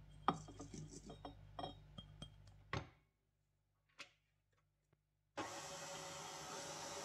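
Stand mixer working bread dough in a stainless steel bowl: a faint hum with clinks and knocks for the first few seconds, a short pause, then about five seconds in the motor starts a steady, even whir.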